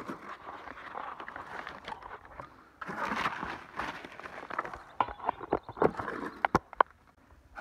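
Rustling and scraping in dry brush and leaves, then a run of sharp clicks and knocks about five to seven seconds in.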